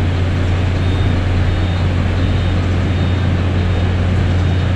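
A 3 hp water pump running steadily, a continuous low hum with a broad mechanical noise over it.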